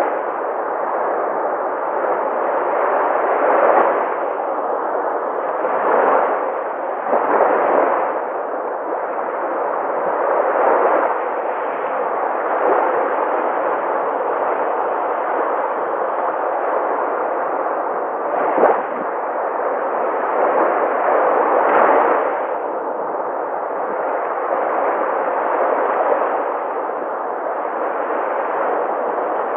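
Sea waves breaking on a shore: a steady wash of surf that swells every few seconds as individual waves crash.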